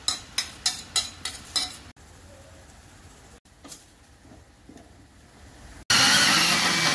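A steel ladle clinks and scrapes, about eight quick strikes, as ground onion-garlic paste is knocked out of a steel mixer jar into a steel kadhai. About six seconds in, a mixer grinder is switched on and runs loudly, grinding tomato pieces.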